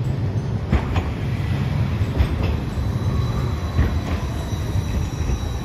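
Hiroshima Electric Railway 5000-series Green Mover, an articulated low-floor tram, passing close by on street track. Its running gear gives a steady low rumble with a few sharp knocks from the wheels on the rails. From about three seconds in, a high steady whine and a slowly falling tone join it.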